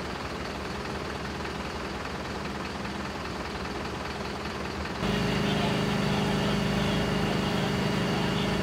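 Vehicle engine idling steadily. About five seconds in it cuts to a louder, steady drone of a Magirus fire engine running, with a low hum and a thin high whine.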